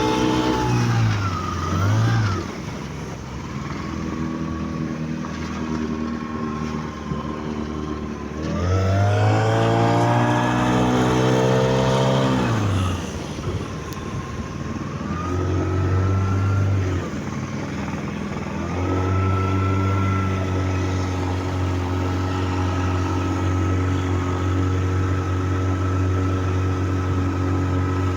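Vikhr two-cylinder two-stroke outboard motor running on test. It revs up and drops back several times, most strongly about a third of the way in, then holds a steady speed for the last several seconds.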